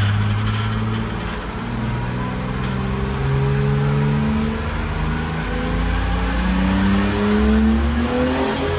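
Turbodiesel engine with an S300 turbocharger and quick spool valve working, pulling under load with its revs climbing steadily as boost builds. A faint high whistle rises near the end.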